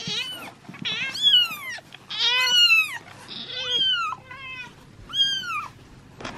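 Newborn kitten mewing: about six short, high, thin cries that rise and fall in pitch, the loudest near the middle.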